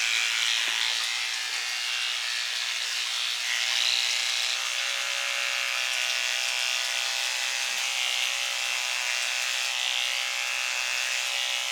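Electric hair clippers running with a steady buzz while clipping a dog's hair at the feet; the clippers seem underpowered to the user.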